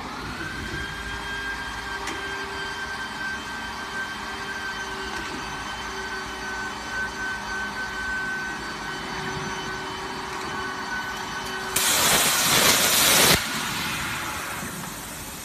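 CNC plasma cutting machine with a rotary pipe attachment: a steady high whine with a lower hum as the machine runs, then about 12 seconds in a loud rushing hiss of the plasma arc cutting a steel pipe, lasting about a second and a half and stopping abruptly.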